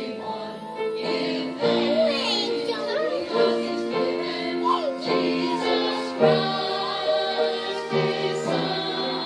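Choir singing with music, held chords that change every second or so.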